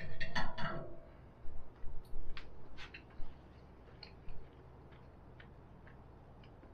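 Knife and fork clinking and clicking against a plate: a louder clatter with a short ring in the first second, then a run of sharp single clicks over the next few seconds, thinning out toward the end.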